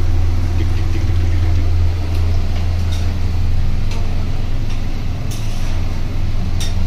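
A steady low rumbling hum runs throughout, with a few light clicks of a steel ladle stirring curry in a kadai.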